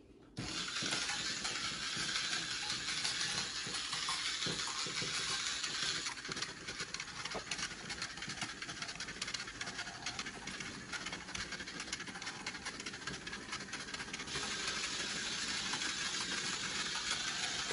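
Small battery-powered motor of a toy spider robot whirring steadily as it climbs a door, starting about half a second in.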